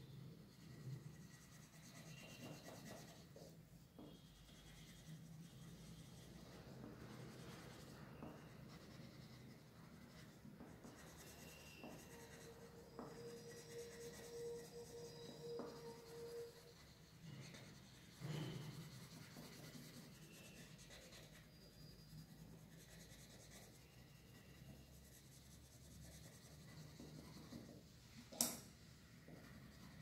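Faint scratchy rubbing of a red colour pencil shading on paper, with a sharp click near the end and a faint steady tone for a few seconds in the middle.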